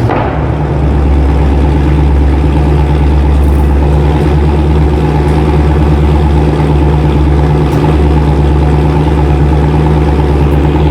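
Dodge Charger Scat Pack's 392 (6.4 L) HEMI V8 running at a steady, loud idle just after a warm start, through a muffler-delete exhaust that keeps the factory resonators and cats. It settles from the start-up flare in the first second or so.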